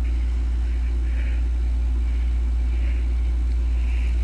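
A steady low rumble, with soft hissing patches recurring about once a second.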